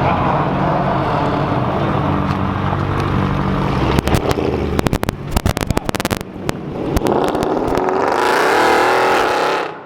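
A car engine running with a steady low rumble, then a spell of sharp crackles and pops about halfway through, then a wavering higher tone near the end.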